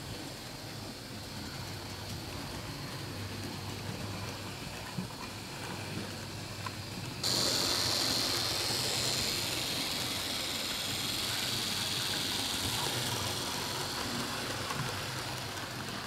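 Model steam train running on the layout: a steady motor hum with the wheels rolling on the rails. About seven seconds in, the sound jumps suddenly to a louder, brighter hiss that carries on.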